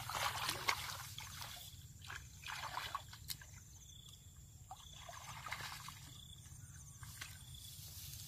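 Water sloshing and splashing in three short bursts, near the start, around the middle and past two-thirds of the way, with a faint trickle between them.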